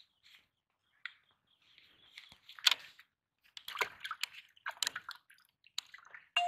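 Small handling clicks and rustles, one sharp hit a little under three seconds in, then water sloshing and splashing in a plastic bucket as a hand reaches in among live caught fish.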